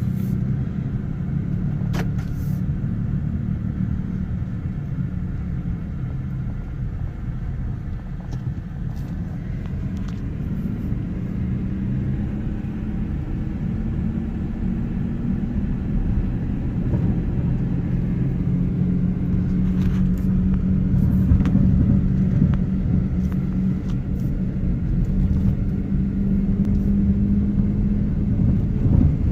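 A motor vehicle running: a steady low rumble with an engine hum that drifts slowly in pitch and grows a little louder toward the end.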